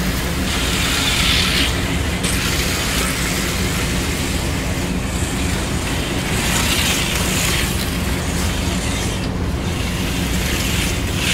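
Auto World 4 Gear HO-scale slot cars running laps on a plastic track: a steady electric whir with a rising hiss each time a car passes close by, a few times over.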